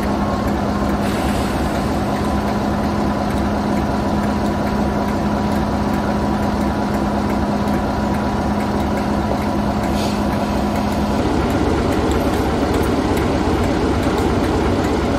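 BR Class 45 diesel locomotive 45041 idling with a steady heavy hum. About eleven seconds in the engine note changes, turning a little louder and rougher.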